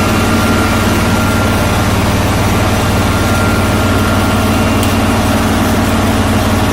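John Deere 445 garden tractor's liquid-cooled V-twin engine running steadily at an even speed.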